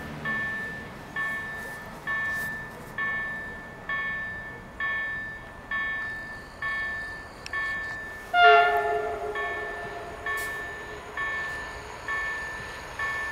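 A level crossing warning bell rings steadily, about once a second. About eight seconds in, the approaching Pendolino (PKP Intercity ED250) sounds its horn in one loud, short blast that fades over about a second.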